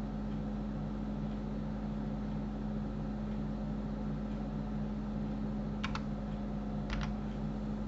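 Steady low electrical hum with a faint fan whir from the computer setup, and two short sharp clicks about a second apart near the end, from the computer's keyboard and mouse as the program is worked.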